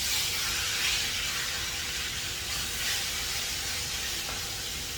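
Pieces of marinated boneless chicken breast frying in hot oil in a pan, a steady sizzle.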